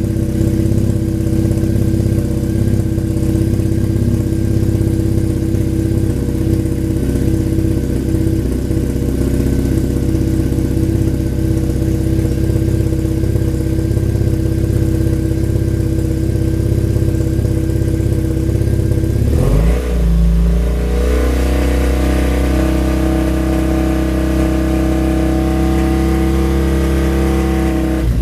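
2010 Triumph Bonneville's air-cooled parallel-twin engine running steadily at idle just after starting. About two-thirds of the way through it is brought up to a higher steady speed and held there.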